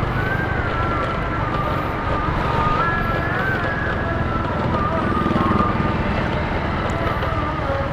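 Intercity bus's diesel engine running with a rough, snore-like exhaust rumble, slightly swelling about five seconds in.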